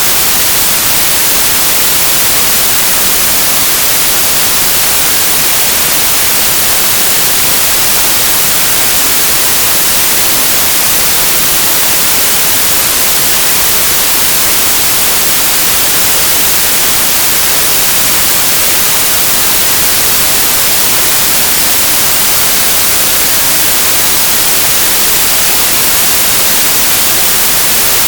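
Loud, steady static hiss like white noise, even throughout and brightest in the high end, with no other sounds in it.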